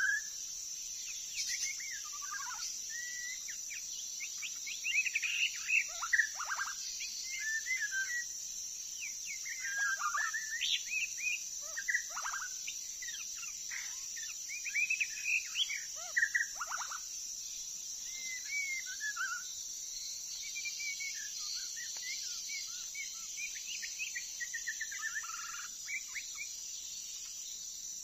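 White-rumped shama singing varied whistled phrases of rising and falling notes in groups with short pauses, over a steady high drone of insects.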